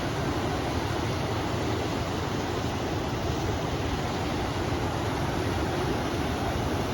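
A river flowing, mixed with wind: an even, unbroken rushing noise, heaviest in the low rumble.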